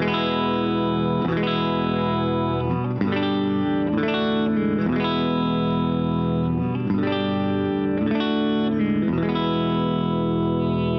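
Goldtop Les Paul electric guitar played through an amplifier on both pickups, volumes backed off to 8 and tones full up: a slow progression of strummed chords, each left to ring before the next.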